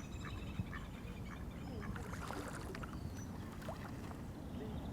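Faint lakeside ambience: water birds calling now and then over light splashing and lapping water.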